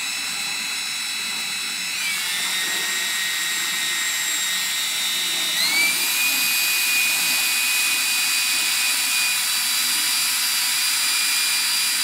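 Cordless drill running a small bit to drill a pilot hole into a car's rear spoiler, a continuous high-pitched motor whine. Its pitch drops about two seconds in and rises again about six seconds in.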